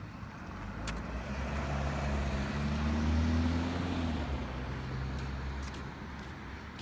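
A motor vehicle driving past, its engine note and tyre noise swelling to a peak about three seconds in, then fading.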